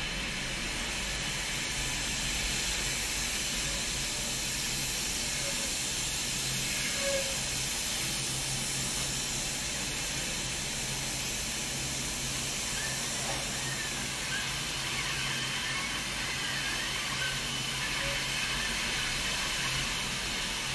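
Steady hiss of robotic paint-spray atomizers and paint-booth air in a car body paint shop, over a low steady hum.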